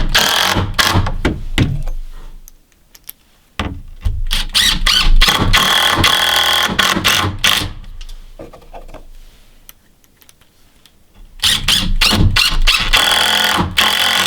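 Cordless screw driver running in three bursts with a high whine, driving 3-inch screws into the jack stud.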